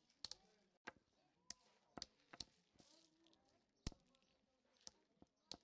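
Near silence broken by faint, sharp clicks and taps at irregular intervals, about two a second, the sharpest a little before four seconds in.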